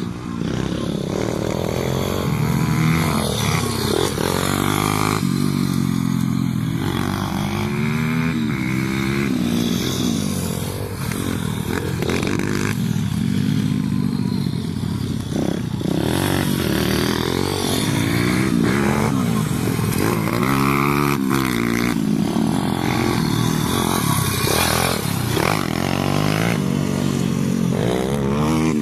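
Pit bike's four-stroke single-cylinder engine being ridden hard, its pitch climbing and dropping again and again as the throttle is worked.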